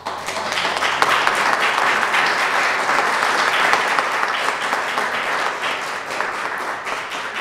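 Small audience applauding, many hands clapping together at a steady level.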